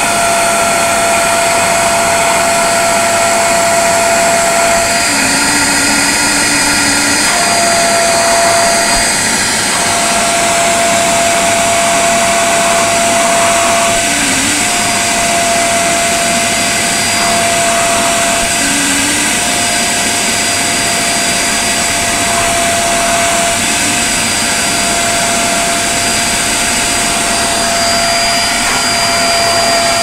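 A 1000-watt STARQ wet and dry vacuum cleaner running steadily, sucking the freshly sprayed fabric roof lining of a car through a clear upholstery nozzle. It makes a loud, even rush with a steady whine whose tone breaks and shifts now and then as the nozzle moves.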